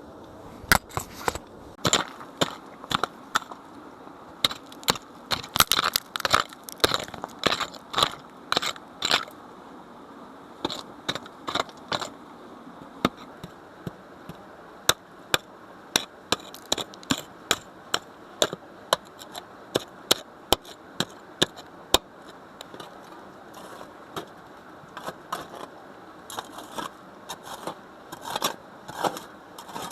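An irregular run of sharp cracks and crunches with some scraping, about one or two a second, densest in the first ten seconds.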